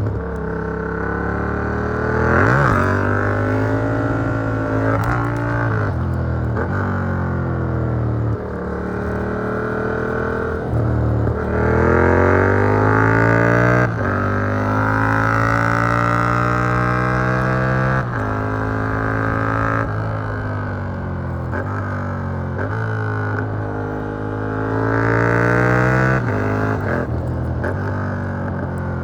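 Yamaha MT-07's CP2 parallel-twin engine through an Arrow Works exhaust with a dB killer, pulling hard under acceleration. Its pitch rises steadily, then drops sharply at each gear change and climbs again, many times over, and the engine backs off in between. The sound is picked up from inside the rider's backpack.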